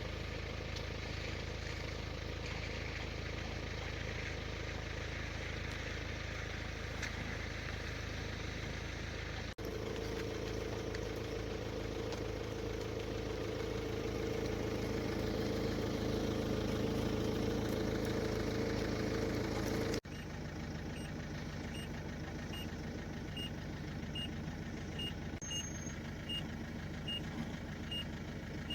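Steady low mechanical hum, like an engine running, broken by two sudden cuts. In the last part a faint high tick repeats about once a second.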